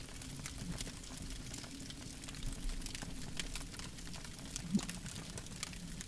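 Campfire crackling: irregular small snaps and pops over a steady low rumble, with one louder pop near the end.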